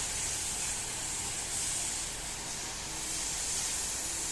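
Steady high-pitched hiss with no distinct events, level throughout.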